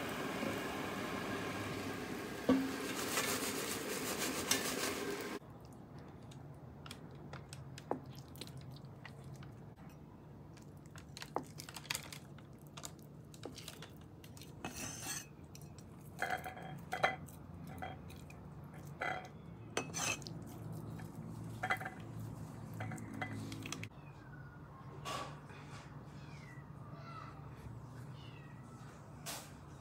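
Steady whirring noise from an air fryer as its basket of crispy tofu is pulled out, cutting off abruptly about five seconds in. Then scattered clicks and knocks of a knife cutting firm tofu on a wooden board and of a metal spoon against a plate.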